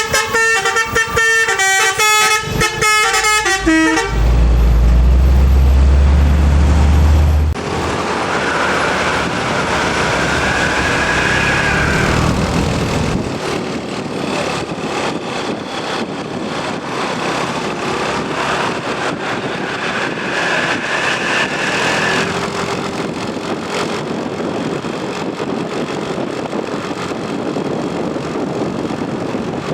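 A Basuri telolet multi-tone bus horn plays a quick, changing melody for about the first four seconds, then stops. A loud low rumble follows for about three seconds, then steady road traffic noise with vehicles passing.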